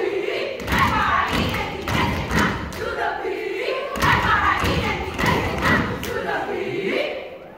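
Heavy rhythmic thumps under loud group voices during a stage dance routine, ringing in a large hall, dropping away near the end.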